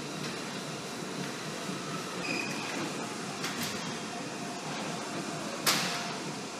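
Steady background hum of room ventilation, with a fainter knock midway and one sharp knock near the end as hands catch and shift on a metal wall-mounted pull-up bar frame.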